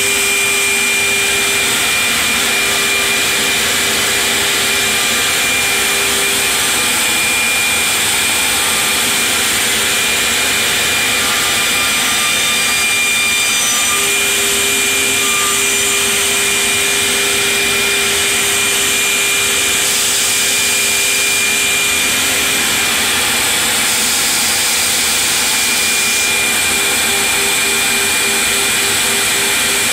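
Builders Automation 5-axis CNC stair router's spindle running and routing a wooden stair board: a steady, loud whine over the rush of cutting and dust extraction.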